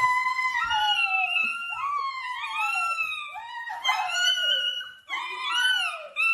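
A dog howling and whining in a run of long, high calls that waver up and down in pitch, with brief breaks about four and five seconds in.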